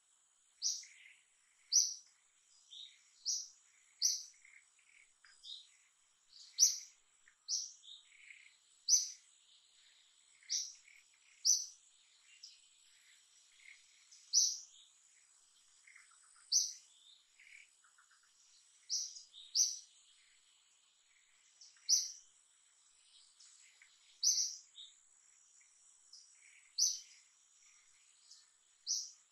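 A small bird chirping over and over, a short, high note every one to two seconds, with a faint steady high insect whine underneath.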